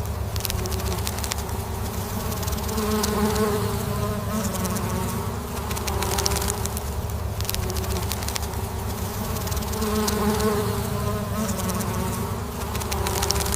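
Honeybees buzzing: a continuous drone of several overlapping, wavering hums that swells a little about three seconds in and again near ten seconds.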